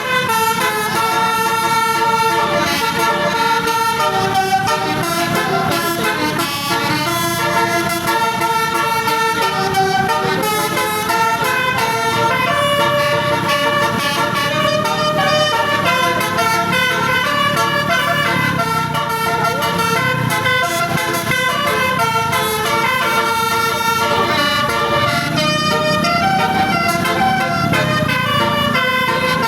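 A bus's telolet basuri horn, a set of musical air horns, playing a melody of held notes that step up and down in pitch without a break.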